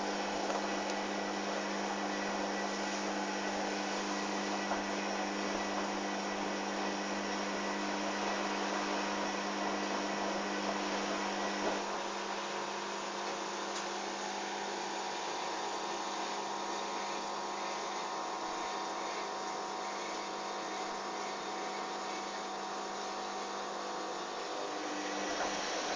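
Hoover Dynamic washing machine running with a steady motor hum over a hiss of water and machinery; the hum's tone changes about twelve seconds in.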